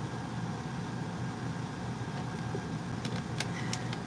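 Steady low mechanical hum, like an air conditioner running, with a few light clicks about three seconds in.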